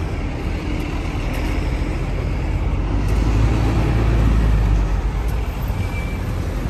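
Street traffic: a city bus's diesel engine rumbling as it drives off, swelling about three seconds in, with cars passing.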